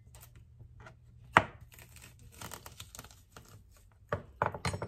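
Kitchen knife cutting jalapeño peppers on a plastic cutting board: one sharp knock a little over a second in, faint scraping and ticks, then a quick run of knocks near the end.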